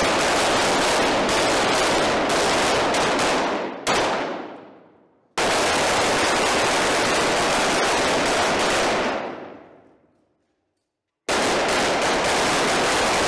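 Several C8 carbines firing fast strings of shots on an indoor range, in three long volleys of a few seconds each. The first two die away in a long echo, with a short silence before the next volley.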